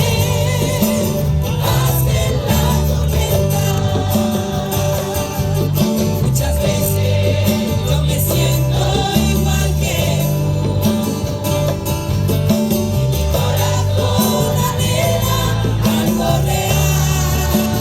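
A group of voices singing a church worship song with instrumental accompaniment and a strong bass line.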